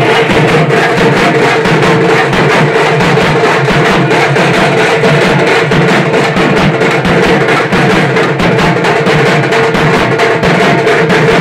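Loud, fast procession drumming, the strokes dense and unbroken, with a steady held note running over them.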